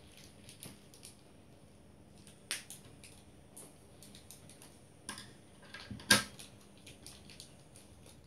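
Small plastic toy packet being picked open by hand: scattered light clicks and crinkles of the plastic, with one sharper click about six seconds in.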